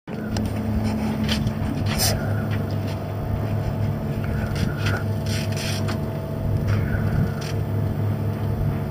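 A boat's engine running with a steady low hum. Short scraping hisses come every second or so over it.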